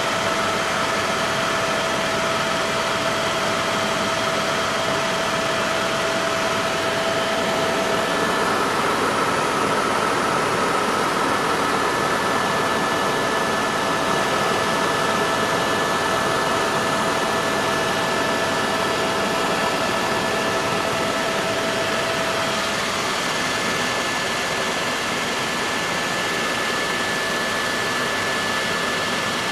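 Helicopter cabin noise in flight: a steady rush of rotor and engine noise with a few steady whining tones that shift slightly in pitch a couple of times.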